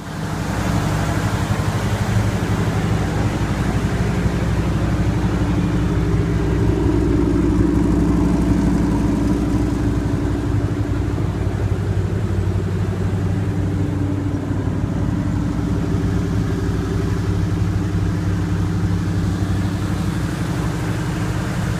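Engine idling steadily, a low, even running note that cuts in abruptly at the start and holds without revving.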